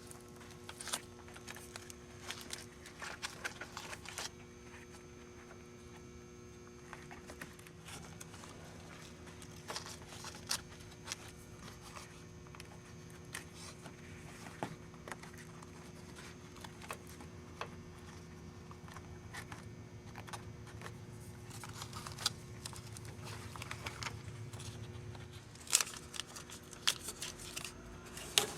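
Faint scattered rubbing, clicking and crinkling as a rubber door weatherstrip is pressed and worked into place by hand, over a steady low hum.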